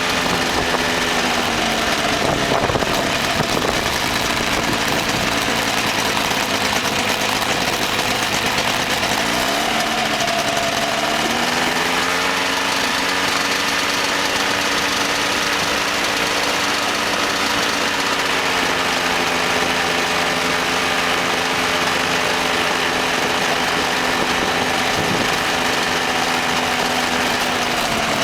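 Ultralight aircraft's engine and propeller running in flight, with a steady hiss over it. The pitch rises about ten seconds in as the throttle is opened, holds, eases slightly later on, and drops near the end.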